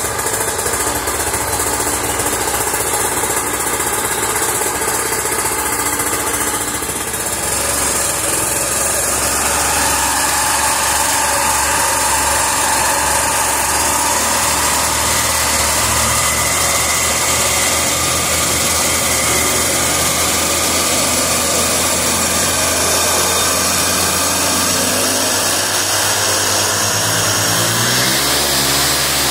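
EVO 100cc paramotor's two-stroke engine running steadily at a loud, even level. Its pitch and level rise a little about seven to ten seconds in, and the pitch shifts again near the end as the throttle is moved.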